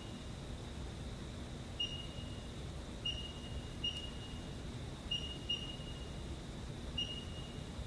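Six short, high electronic beeps at irregular intervals, like keypresses on a CNC mill's control panel, over a steady low hum.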